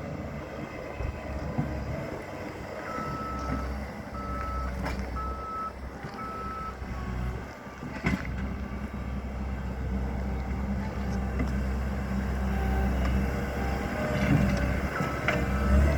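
Backup alarm of a small bulldozer beeping as it reverses: four evenly spaced beeps a few seconds in and more near the end, over its engine running steadily. A few sharp knocks are heard as well.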